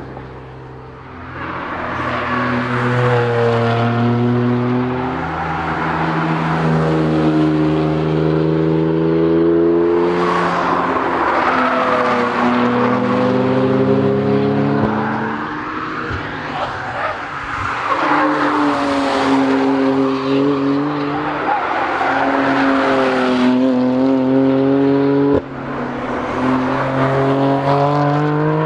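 BMW M3 (F80) prototype's twin-turbo straight-six accelerating hard: its engine note rises through the gears and breaks off at each upshift, the car passing by several times.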